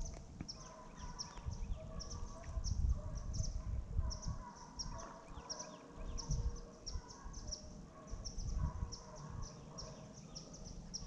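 Pack of hunting dogs barking and baying in the distance, in short repeated calls, while small birds chirp high and often. Gusts of wind rumble on the microphone.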